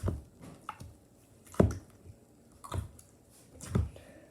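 Store-bought slime being squeezed and poked in the hands, giving about five short separate squishes, the loudest about one and a half seconds in.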